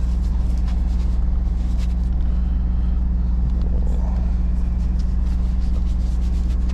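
A large engine idling steadily: an even, low drone that holds the same pitch throughout, with a few faint clicks over it.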